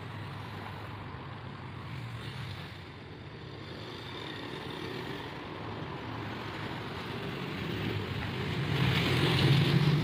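Steady low drone and rumble of an approaching ZCU-20 diesel-electric locomotive, growing louder in the last second or two.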